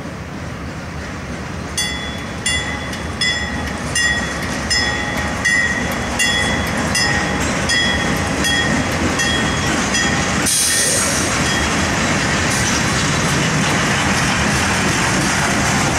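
A level-crossing bell rings steadily, about one and a half strikes a second. About ten seconds in, the bell gives way to a sudden swell of noise as a train of hot-metal bottle cars, led by a GE B32-8 diesel locomotive, passes with a steady heavy rumble of engine and wheels.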